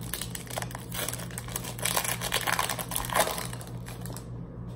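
Foil Pokémon booster pack wrapper being torn open and crinkled in the hands, a run of irregular crackling rustles that dies away about four seconds in, over a steady low hum.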